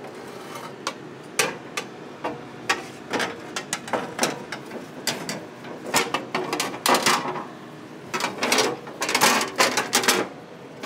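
Aluminum catalytic-converter shield plate being handled and fitted up against a pickup truck's underbody by hand: irregular metal clanks, knocks and scrapes, with clusters of louder knocks around three, five, seven and nine seconds in.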